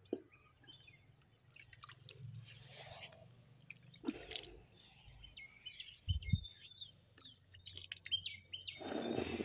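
Faint bird chirping, scattered at first, then a quick run of short falling chirps in the last couple of seconds. Two dull knocks come about four and six seconds in.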